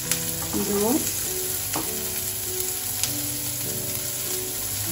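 Hot oil sizzling steadily in a frying pan as chickpea patties are shallow-fried, with more patties being laid into the oil and a few faint clicks.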